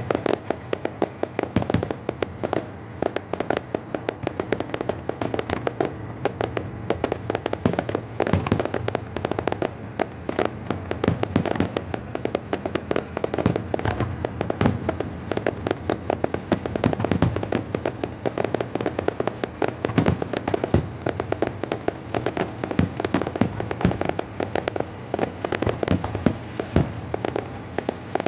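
Fireworks display in a dense barrage: many sharp bangs a second without a pause, the heavier booms standing out among a steady rapid patter of smaller reports.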